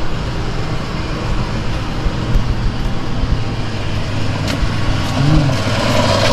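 Steady low drone of a running vehicle engine, with a single sharp click about four and a half seconds in.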